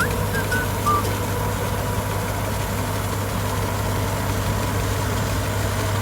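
Combine harvester's diesel engine running steadily with a constant low hum. A few short high chirps sound in the first second.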